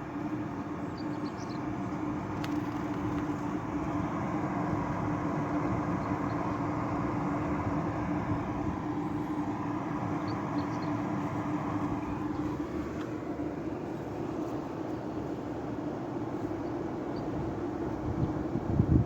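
Iris Ohyama IPA-2822G portable air conditioner running: a steady hum from its compressor with a low steady tone under the rush of its fan. A brief knock near the end.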